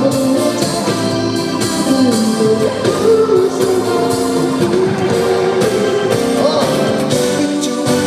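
Live pop concert music: a male singer sings over loud, steady backing music.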